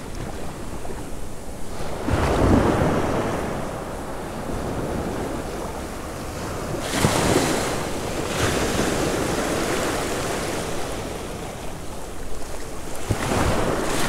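Ocean surf breaking and washing up a sandy beach at the water's edge, swelling three times as waves come in, about every five to six seconds.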